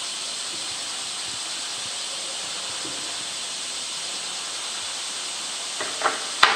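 Steady high-pitched hiss, with a few sharp knocks and clicks near the end.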